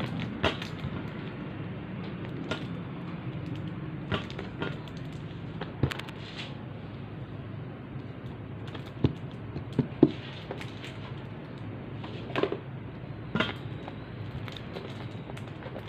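A plastic tub of frozen soup in a thin plastic bag being handled and turned over: scattered clicks, taps and crinkles, with the sharpest knocks around nine and ten seconds in, over a steady low hum.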